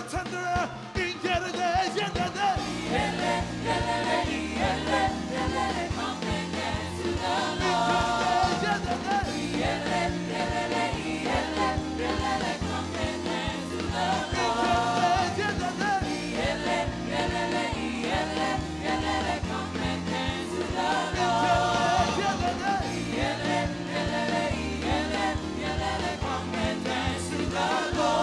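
Live gospel praise music: a worship team singing into microphones over a band with a steady bass and beat, with the congregation joining in.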